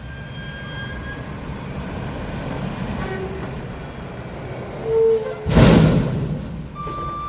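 Mack front-loader garbage truck with a McNeilus body, its diesel engine running with a steady rumble. About five seconds in there is a short tone, then a loud burst of air-brake hiss. Near the end the reversing beeper starts up.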